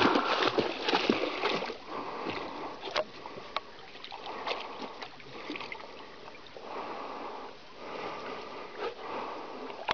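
Dog wading through shallow water, its legs splashing. The splashing is loudest for the first couple of seconds, then settles into softer sloshing.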